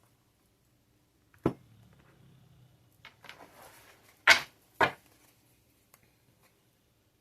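Tarot cards being handled on a table: a sharp tap about a second and a half in, a short rustle, then two loud sharp taps half a second apart in the middle, and a few faint ticks after.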